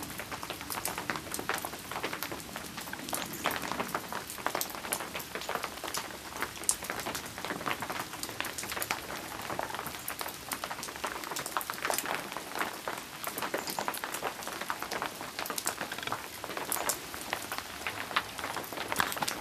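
Rain falling steadily, many separate drops pattering irregularly.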